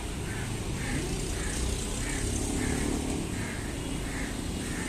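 Steady rumble of road vehicle traffic, with a soft chirp repeating about every two-thirds of a second.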